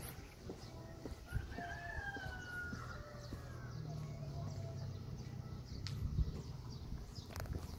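A rooster crowing once: a drawn-out call, starting about a second in, that rises and then slowly falls. Faint scattered knocks run under it, and a low hum comes in after it.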